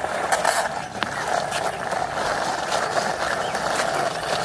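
Plastic toy vehicle pushed by hand, its wheels rolling over a rough hard surface: a steady gritty rolling noise with small clicks.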